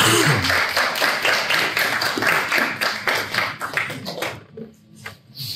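Audience clapping, a dense patter of many hands that dies away about four seconds in.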